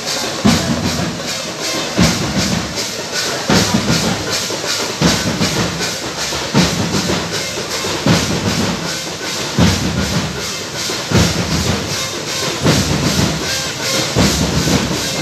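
Drum music in a steady rhythm: a heavy low beat about every one and a half seconds with lighter beats in between, over a fast, even ticking.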